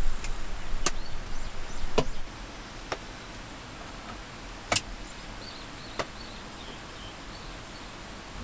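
Metal cutlery clinking against a small steel skillet about five times, at irregular intervals, while a pancake is cut, over a steady hiss of rain.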